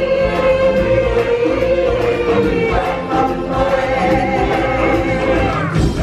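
Choir and solo voices singing over instrumental backing, holding long notes with a wavering vibrato.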